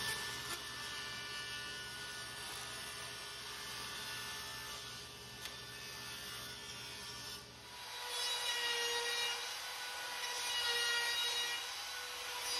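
Table saw running as a board is ripped along the fence. About seven and a half seconds in it gives way to a louder, high whine from a handheld trim router cutting along the edge of a wooden strip.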